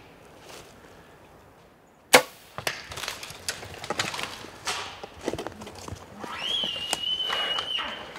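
A bow shot: one sharp crack about two seconds in, followed by scattered snaps and rustles. Near the end a high whistling tone rises and holds for about a second and a half.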